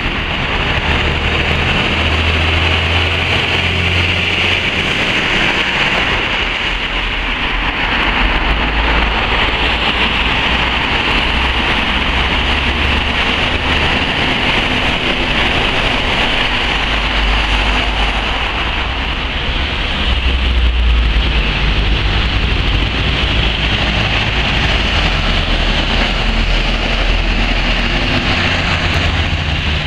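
Lorries and cars passing on a wet road: the low drone of heavy diesel engines under a steady hiss of tyres on the wet surface.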